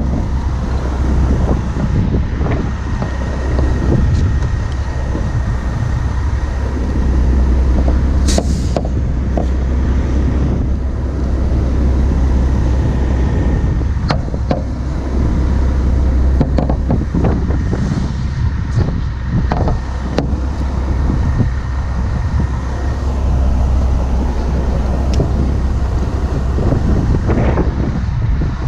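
Heavy-truck diesel engines running with a steady low rumble, a faint steady whine above it, and scattered short knocks.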